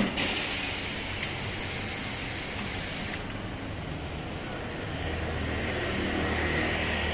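A sharp click, then compressed air hissing for about three seconds before cutting off suddenly. After that comes a steady low machine hum with a faint whine.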